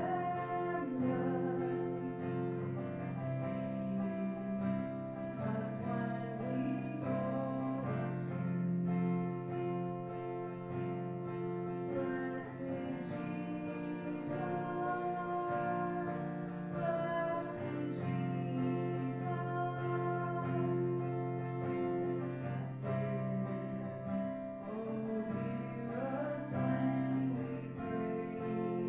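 Worship music: singing accompanied by guitar, with sustained chords underneath.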